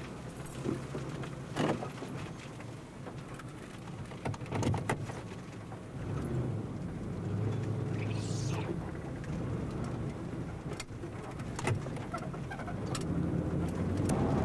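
Vehicle engine and road noise heard from inside the cabin, with scattered sharp taps of rain on the glass and a short high squeak about eight seconds in.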